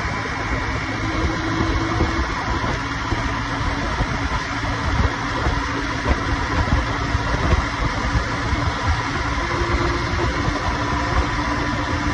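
Honda motorcycle ridden at speed on a highway: its engine runs steadily under a heavy, gusting rush of wind over the microphone.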